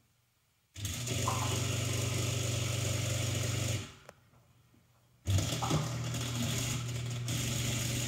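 Faulty drain pump of a GE Profile dishwasher running with a loud, steady mechanical buzz, in two runs of about three seconds each with a short pause between. The noise is the sign of a failing drain pump.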